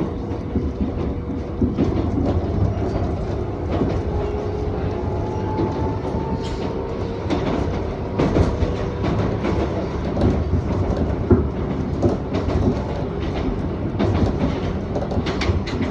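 Iga Railway electric train, an ex-Tokyu car, running along the line as heard from inside the car: steady running noise with repeated sharp clicks and knocks from the wheels over the rail joints and a faint steady whine.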